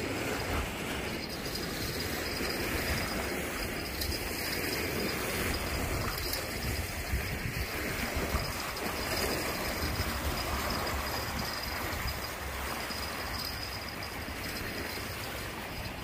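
Steady wind buffeting the microphone with a low rumble, over the wash of small waves against the shore.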